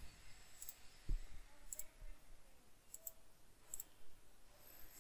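Computer mouse clicking, about five sharp clicks roughly a second apart, with a soft low thump about a second in.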